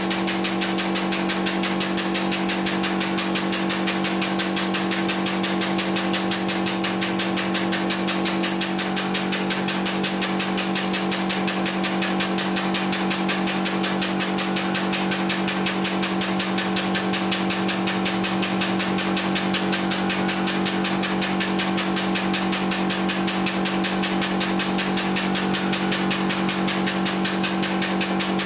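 Hydraulic press pump running steadily under load with a fast, even pulsing and a steady hum while the ram slowly presses down.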